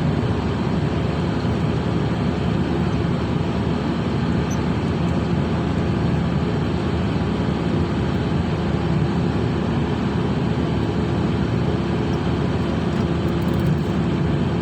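Ship's machinery running steadily: a constant drone with a steady low hum.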